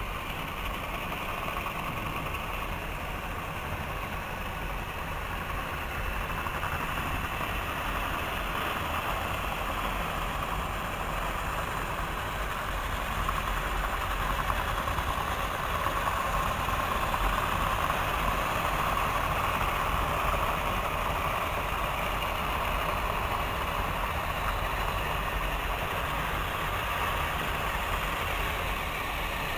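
Battery-powered toy trains running on plastic track: a steady whirring rattle of small motors and wheels, swelling about halfway through as a long train passes close by.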